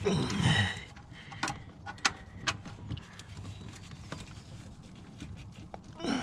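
A man grunts with effort as he strains at a tight spark plug. Several sharp, separate clicks and taps of a hand tool on the engine follow, with another short grunt near the end.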